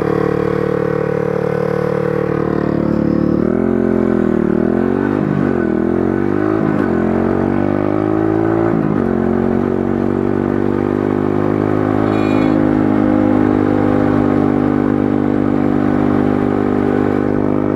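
Pit bike's small single-cylinder engine idling, then revving up and down repeatedly as it pulls away, starting about three and a half seconds in, before settling into a steady run at road speed from about nine seconds.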